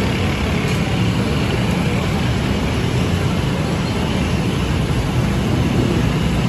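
Busy street ambience: a steady rumble of traffic with a faint background hubbub of voices.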